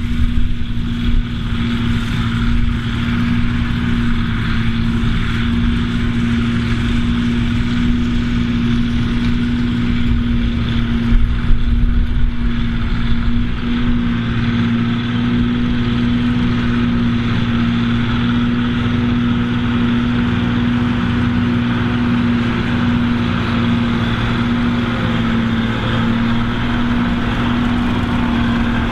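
Massey Ferguson 2640's six-cylinder diesel working under steady load, driving a JF forage harvester as it chops grass and blows it into a trailer. The engine and harvester make a continuous, even drone with one strong steady hum, mixed with the smaller tractor running alongside.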